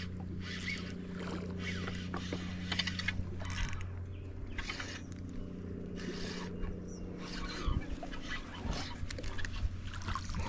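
Water splashing in repeated short bursts as a hooked bass is fought to the side of the boat and swung aboard, over the steady low hum of an electric trolling motor.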